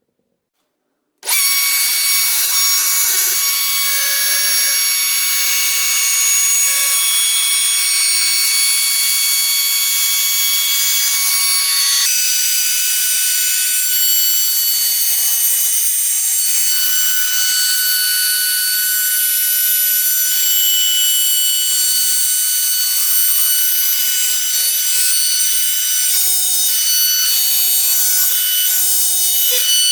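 A router running and cutting material in a flattening and milling jig: loud, steady cutting noise with a high whine, starting abruptly about a second in. Its tones change at about twelve seconds.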